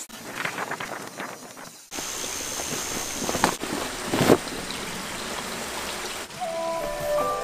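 Cloth rustling and swishing: first the strokes of a charcoal pan iron over a pleated skirt, then a length of fabric shaken out and spread across a wooden table, with one louder whoosh about four seconds in. Music with clear held tones starts near the end.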